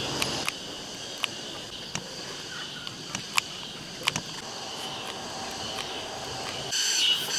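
Insects chirping in a steady high-pitched chorus, growing louder near the end, over a few sharp clicks and taps from hot-gluing cotton rope onto a rubber tyre.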